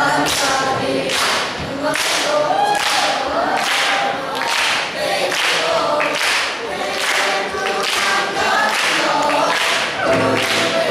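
Mixed choir of young teenage students singing, with a sharp beat about twice a second. Near the end the voices change to fuller, held chords.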